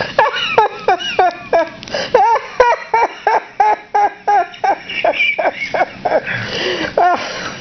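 A person laughing hard in a long run of short, high-pitched ha-ha bursts, about three a second.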